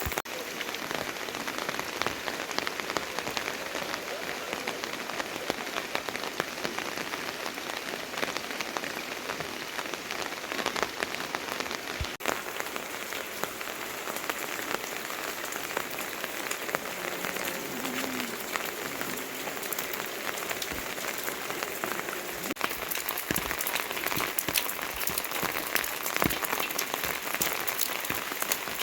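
Steady rain falling, with many sharp individual drops spattering close by.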